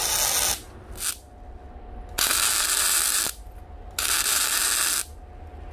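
MIG welder tack-welding a steel frame onto a wood stove's door: bursts of arc crackle, a short one at the start, a brief one about a second in, then two of about a second each.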